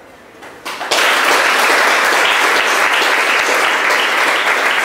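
Audience applauding, breaking out about a second in after a short hush and then holding steady as a dense clatter of many hands.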